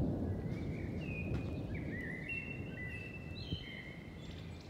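A songbird singing a series of short whistled notes, some gliding and some held, over a low rumbling noise that slowly fades away.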